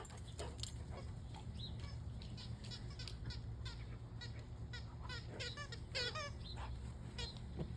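Rubber squeaky soccer-ball dog toy squeaking over and over in short, wavering squeaks as a dog chews it, over a low steady rumble.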